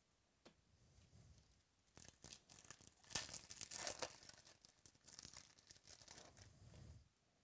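Foil wrapper of a baseball card pack being torn open and crinkled, a dense crackling that starts about two seconds in, is loudest about a second later, and stops suddenly near the end. A few small clicks of cards being handled come before it.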